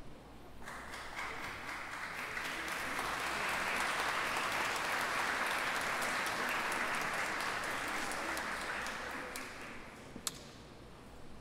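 Audience applauding: clapping starts suddenly about half a second in, builds, then dies away, with one sharp click near the end.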